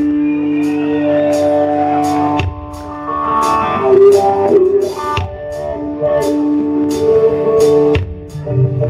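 Live blues-rock band playing an instrumental passage: electric guitar holding sustained notes over a drum kit with a steady cymbal beat.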